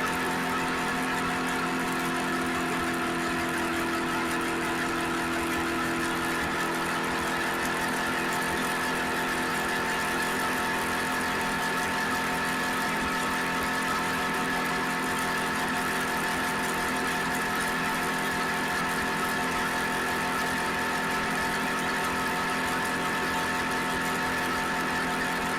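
Suzuki SV650X's 645 cc V-twin engine running at a steady, unchanging pitch.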